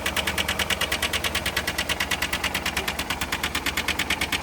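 Chevy HHR four-cylinder engine idling with a rapid, even knock, about ten a second: rod knock, with the oil thickened by syrup, gravy and other groceries poured in, and the knock getting quieter.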